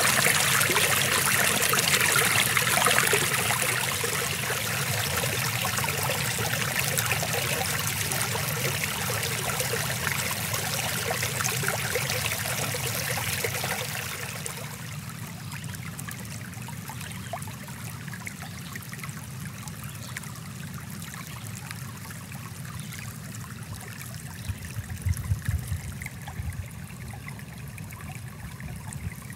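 Stream water flowing and trickling over rocks, a steady wash of noise that drops noticeably in loudness about halfway through as the stream's flow falls. A brief low rumble comes about 25 seconds in.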